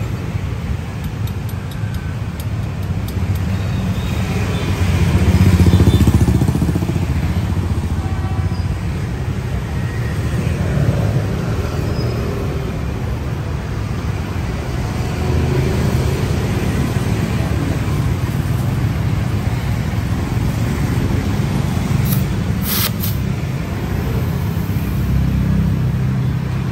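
Street traffic: a steady low rumble of passing motor vehicles, swelling as one passes closer about six seconds in, with a brief sharp click near the end.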